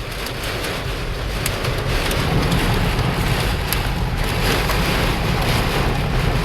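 Heavy rain pelting a car, heard from inside the moving car over a low road and engine rumble, with a few sharp ticks scattered through it from small hail starting to hit the car.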